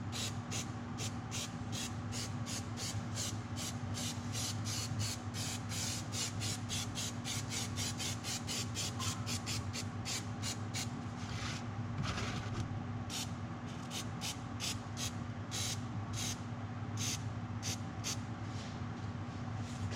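Brush spreading glue, in quick scratchy strokes about four a second, regular at first and then more uneven with a short pause about ten seconds in; a steady low hum runs underneath.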